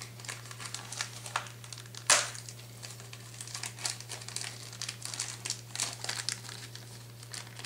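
Small plastic parts bag crinkling and crackling as it is handled and opened, with one sharper crackle about two seconds in. A steady low electrical hum runs underneath.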